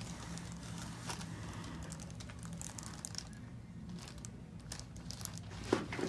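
Paper headrest cover on a chiropractic table crinkling in small scattered clicks as the head is shifted on it, over a steady low hum; a sharper click near the end.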